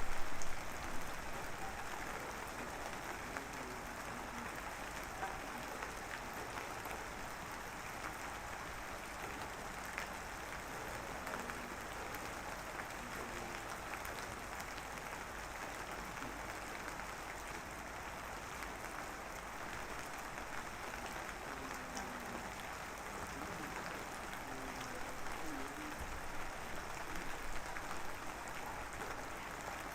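Light drizzle falling steadily, a soft even hiss of rain with scattered small drop ticks. A brief louder surge of the rain noise comes in the first second.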